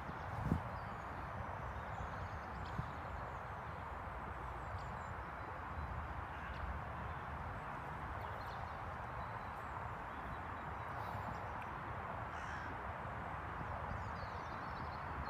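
Steady open-air background hiss with a fluttering low rumble of wind on the microphone, and faint bird calls here and there.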